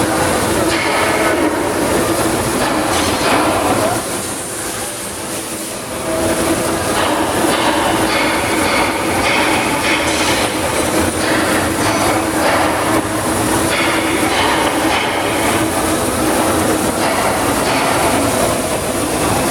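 Oxy-fuel cutting torch running on a CNC pantograph: a loud, steady hissing jet with a hum through it, cutting thick steel plate. It drops briefly about four seconds in, then comes back as before.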